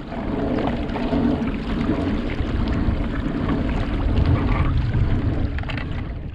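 Wind buffeting the microphone over water rushing along the hull of a moving kayak, a steady noise with a heavy low rumble.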